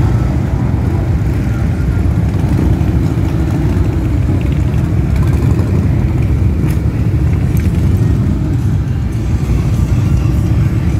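A group of cruiser motorcycles riding slowly past in a line as they roll out, their engines making a steady, loud low rumble.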